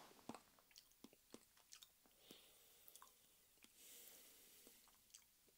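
Near silence with faint, scattered wet mouth clicks as a sip of whisky is worked around the mouth, and a soft breath about halfway through.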